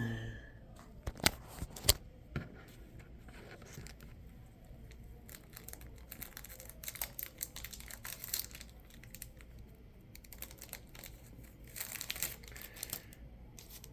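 A foil Pokémon card booster pack being torn open and crinkled by hand: two sharp clicks a second or two in, then scattered crackling of the wrapper.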